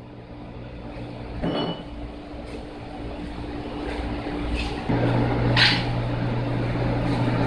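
Wine-pressing machinery running with a steady electric hum that steps up noticeably about five seconds in. There are a couple of brief noises about a second and a half in and again near the middle.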